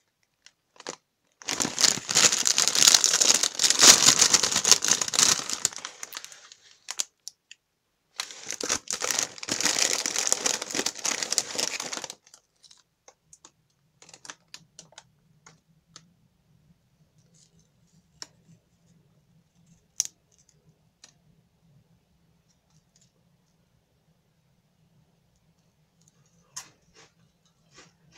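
Shiny metallized plastic snack bag crinkling loudly as it is handled and torn open, in two long bouts. Afterwards only a few faint ticks.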